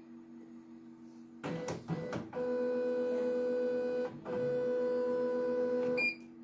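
Computerised embroidery machine (CNY E900) moving its embroidery carriage and hoop: a steady electric motor whine in two stretches of about a second and a half each, with a short break between, ending in a short electronic beep.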